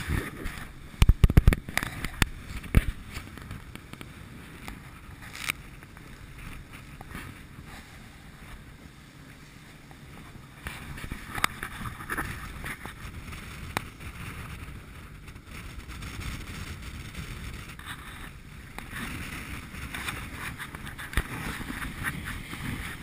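Wind buffeting the microphone on the open deck of a fishing boat, over a steady low rumble. A quick cluster of sharp knocks comes in the first few seconds, with a few single clicks later.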